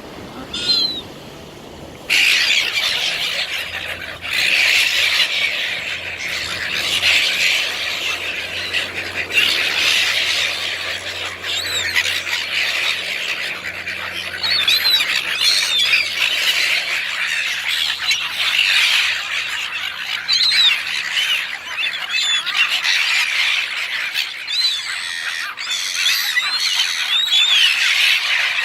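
A flock of gulls squawking and crying all at once while being fed chips: a single call at first, then from about two seconds in a dense, constant racket of overlapping calls, each rising and falling in pitch.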